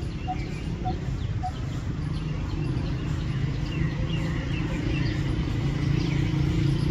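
Coppersmith barbet giving its metronomic, hammer-like call: three evenly spaced single notes about half a second apart, which stop about a second and a half in. A steady low rumble and scattered brief high chirps sound beneath.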